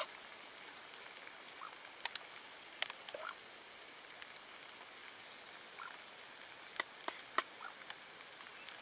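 Metal spoon clinking and scraping against a metal pot and plate as cooked rice is scooped and served: a handful of sharp clinks, three of them close together near the end, over a steady faint hiss.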